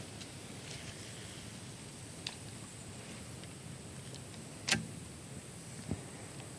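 Faint, steady outdoor background with a few short, sharp clicks, the loudest about two-thirds of the way through and a duller knock just after it.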